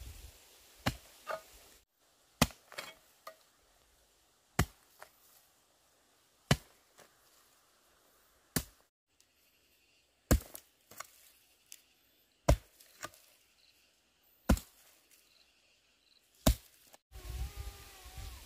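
Repeated sharp chopping strikes, about one every two seconds, several followed closely by a lighter second knock.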